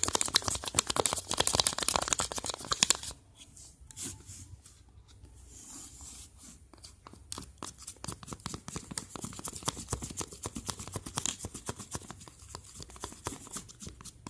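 Slime with grated crayon being stirred: a dense run of sticky crackles and clicks, loud for the first three seconds, then quieter and sparser.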